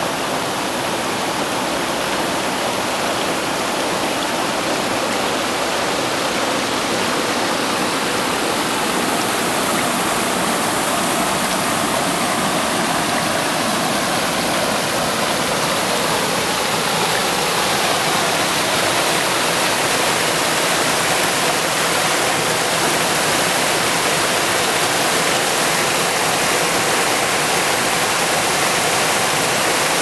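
Rocky mountain stream running and splashing over stones and small cascades: a steady hiss of water that grows a little louder after about eight seconds.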